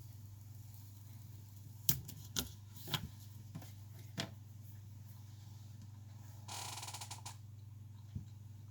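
Small hand tools clicking and tapping against a phone being opened for a battery replacement, five sharp clicks in a couple of seconds, then a short rasping scrape and one last click, over a steady low hum.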